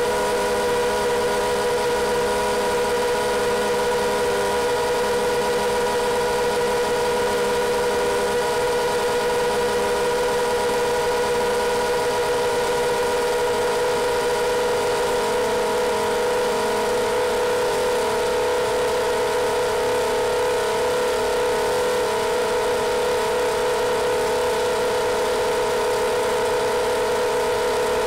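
Quadcopter's brushless motors and propellers whining steadily at a constant pitch, heard through the onboard camera, with the tone growing a little stronger about halfway through.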